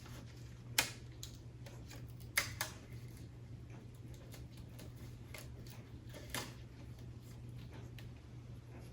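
A few sharp clicks and light handling noises as the plastic instrument-cluster backing and circuit board of a 1970s Ford truck are worked loose, over a steady low hum.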